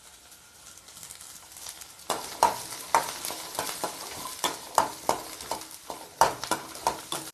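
Small onions (shallots) sizzling in oil in a stainless steel kadai. From about two seconds in, a spatula stirs them, clinking and scraping against the pan about twice a second.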